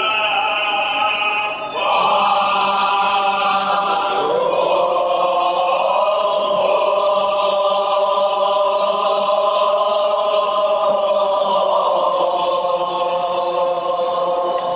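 Kashmiri marsiya elegy chanted by male voices in unison, holding long sung notes. A new note starts about two seconds in, slides lower around four seconds, and is then held steady.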